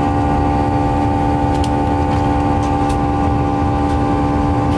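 Steady cabin noise of an airliner in flight: a low rumble with a constant engine hum held at the same pitch, and a few faint clicks.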